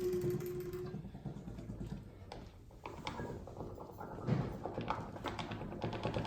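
A held low trombone note fades out about a second in, followed by sparse, irregular clicks and taps of improvised percussion and movement, with one low thump in the middle.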